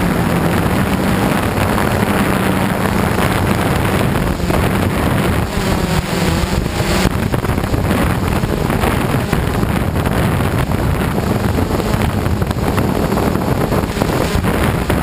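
Camera drone's propellers and motors buzzing steadily, heard from the drone's own onboard camera, with wind rushing over the microphone.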